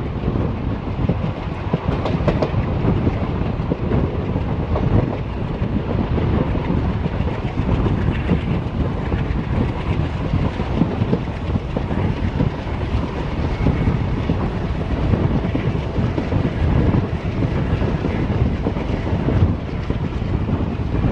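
Express train coaches running along the line, heard from on board: a steady rumble with the wheels clattering over the rails.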